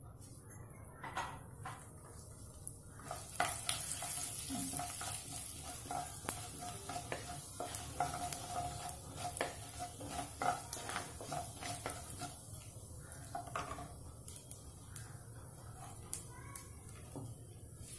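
Mustard and cumin seeds sizzling in hot oil in a nonstick kadai, with the mustard seeds crackling and popping as they splutter. A wooden spatula stirs and scrapes the pan. The sizzle grows louder about three seconds in.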